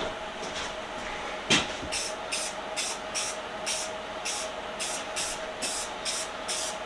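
Aerosol spray-paint can spraying in short, quick bursts, about two or three a second, after a single click about a second and a half in.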